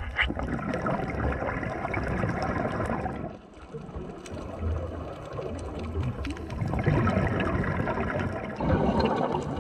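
Muffled underwater water noise: a rushing, gurgling wash that swells and fades, dropping away briefly about three seconds in and building again near the end.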